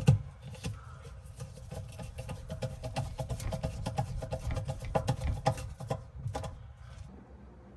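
Plastic dishwasher filter parts being handled and fitted back into place: a run of irregular clicks, knocks and rubbing, quieter near the end.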